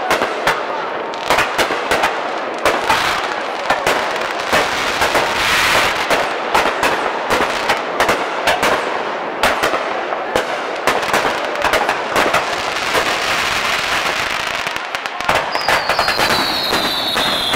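Fireworks display: aerial shells bursting in rapid, near-continuous sharp reports and crackles. Near the end a long whistle glides down in pitch.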